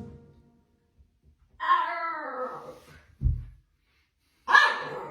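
A dog crying out twice in long, wavering, whining calls, with a short low thump between them.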